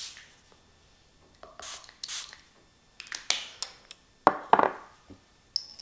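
Small spray bottle spritzing a fine mist of water onto whole coffee beans (RDT) in short hissing puffs, with scattered handling knocks and two sharp clicks about four seconds in. Just before the end the beans start rattling as they are shaken.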